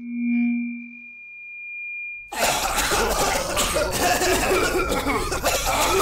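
A brief electronic tone effect, then about two seconds in a cartoon audience breaks into loud, continuous coughing from many people, which in the cartoon's switched world stands for laughter at the comedian's joke.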